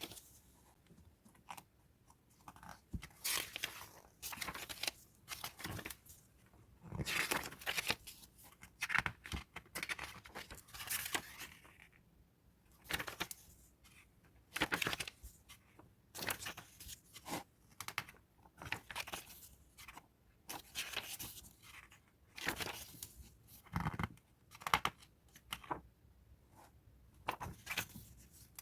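Packaging being torn open and crinkled by hand in a series of irregular ripping and rustling bursts, heard in a small room.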